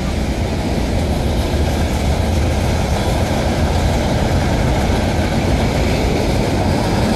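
A train running past, a steady, dense noise with most of its weight in the low end, growing slightly louder.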